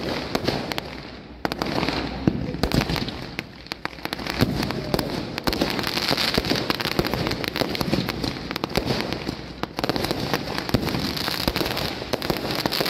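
Fireworks launched from the ground, going off in rapid succession: a dense stream of sharp pops and crackles over a steady hiss, with a brief lull about a second in.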